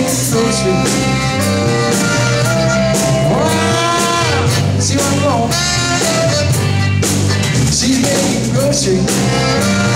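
Live zydeco band playing with accordion, saxophone, drum kit and electric guitar over a steady beat.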